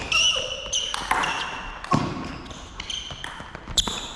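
Fast Spike Pong rally: a table tennis ball struck with paddles and bounced off a round Spikeball-style net gives quick sharp clicks, while sneakers squeak on the wooden gym floor. There is a heavier thump about two seconds in.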